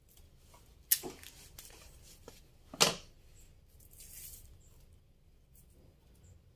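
Hand-work noises as string is handled at a plant's support stake: two sharp clicks about two seconds apart, a few light ticks, and a brief rustle near the end.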